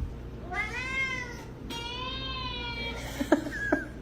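A domestic cat meowing twice, two long drawn-out meows that rise and then fall in pitch, followed by two short clicks near the end.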